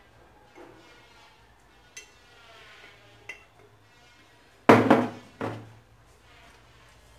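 A spoon scraping and knocking inside a glass jar: a few light clinks, then two loud clattering scrapes close together about five seconds in.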